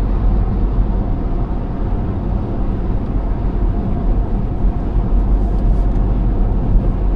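A car cruising on a freeway: a steady low rumble of tyres and engine.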